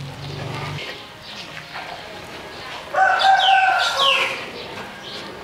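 A rooster crowing once, starting about three seconds in and lasting just over a second, its call ending on falling notes.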